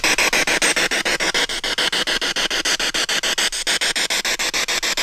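Handheld spirit box (radio-sweep ghost box) scanning: loud radio static chopped into rapid, evenly spaced pulses, about ten a second.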